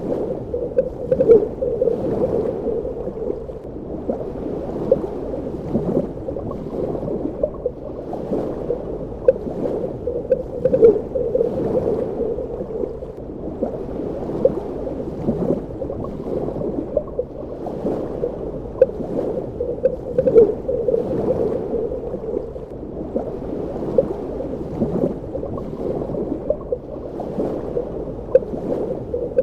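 Underwater ambience: a steady, muffled water rush with frequent small bubbling gurgles and pops.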